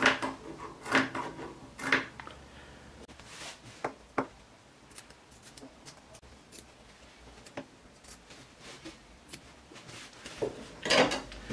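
Fabric scissors snipping notches into the curved seam allowance of a sewn waterproof-fabric apron, clipping the curves so the seam will lie flat when turned. Short, sharp snips at irregular intervals, the loudest in the first two seconds and sparser after.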